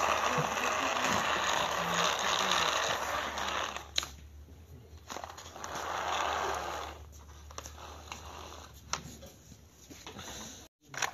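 A wired remote-control toy car's small electric motor and plastic gears whirring as it runs on concrete. The whir lasts about four seconds and stops with a click, then a second, shorter whir follows, with a few light clicks after it.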